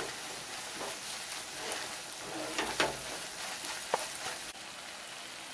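Masala paste sizzling in hot oil in a pot while a spatula stirs and scrapes through it, with a few sharp knocks of the spatula against the pot, the clearest about four seconds in. The spice powders are being roasted (bhuna) in the masala.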